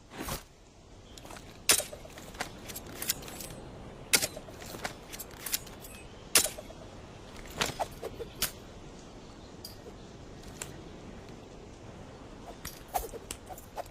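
A karambit-style knife handled and worked, giving irregular sharp metallic clicks and snaps. About a dozen sit spread over the stretch, the loudest a few seconds apart.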